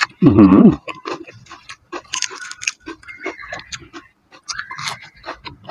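Close-up wet chewing and mouth clicks from a person eating balut in spicy dressing with fresh lettuce, a rapid run of small clicks, with two crisper crackly stretches. Near the start comes a short hummed 'mm' from the eater, the loudest sound.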